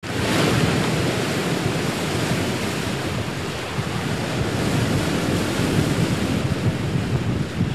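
Steady rush of ocean waves and wind.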